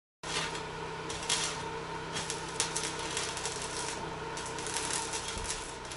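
Rapid irregular clicking and rattling of small hard objects being handled, over a steady mechanical hum.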